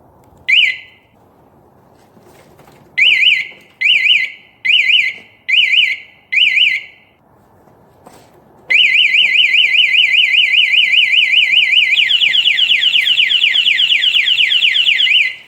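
Hardwired scooter anti-theft alarm going off: a short chirp, then five short warbling beeps, then after a pause a continuous fast warbling siren that switches to a different sweeping tone about twelve seconds in.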